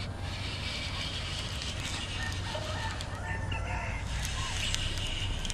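A rooster crowing faintly, its call wavering in pitch about two to four seconds in, over a steady low hum and outdoor background noise.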